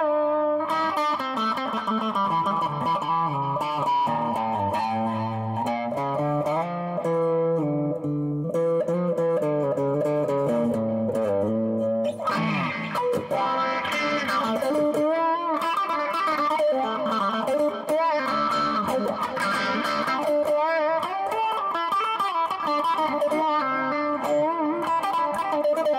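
Clean electric guitar from a Charvel San Dimas's middle single-coil pickup, played through a Dunlop CBM95 Cry Baby Mini wah pedal into a Boss Katana amp. The guitar plays notes and chords. From about twelve seconds in, the tone turns brighter and is swept up and down by the wah.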